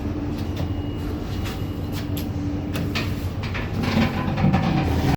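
City street traffic noise: a steady low rumble with a held engine hum, scattered clicks and knocks, growing louder near the end.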